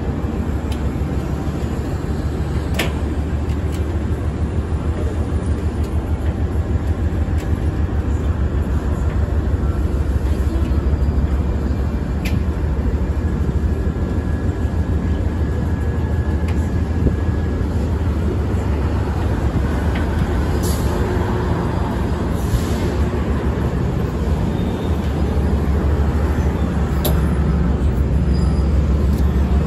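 Diesel freight locomotives passing, followed by loaded freight wagons rolling by, with a steady low engine rumble and a few sharp metallic clanks.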